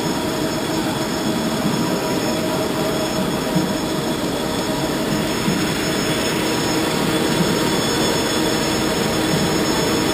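Web offset printing press running in production as the printed paper web passes through: a loud, steady mechanical noise with several constant high tones.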